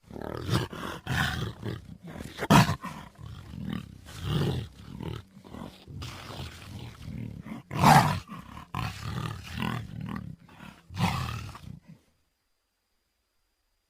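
Big-cat roars and snarling growls in a run of rough bursts, with two loudest roars, one a few seconds in and one about halfway, then an abrupt stop about two seconds before the end.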